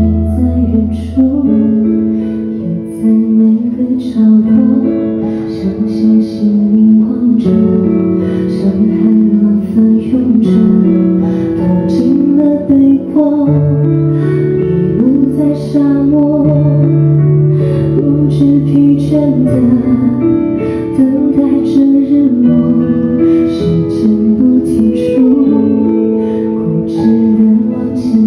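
A woman singing a pop ballad live into a handheld microphone, with instrumental accompaniment.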